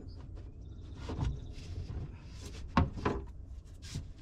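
Wooden bed-platform boards knocking and bumping as they are slid and set into place: a handful of dull knocks, two of them close together near the middle.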